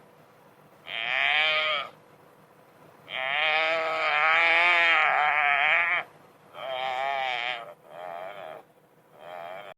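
Distress calls of a wildebeest seized by crocodiles: five loud, wavering cries, the middle one drawn out to about three seconds and the last two short.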